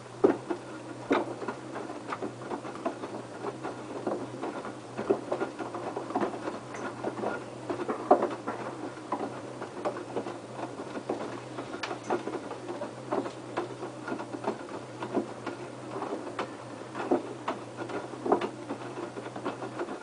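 LG F1222TD direct-drive inverter washing machine turning its drum in the main wash. A steady low motor hum runs under an irregular patter of knocks and sloshes from the wet laundry tumbling. The drum stops just before the end.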